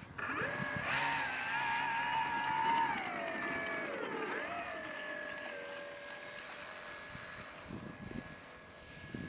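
A 1:5-scale RC Piper J-3 Cub model's motor and propeller running on the ground with a steady whine. About three seconds in the pitch drops as the throttle comes back, then settles to a lower steady whine.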